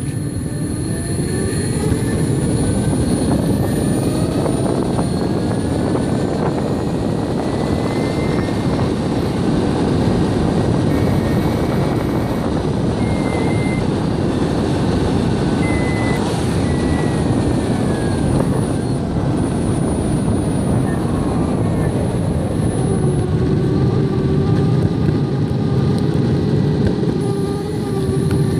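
Metroboard electric skateboard riding fast on asphalt: a loud, steady rumble of wheels on the rough road and rushing wind, with the electric motor's whine gliding up and down in pitch as the speed changes.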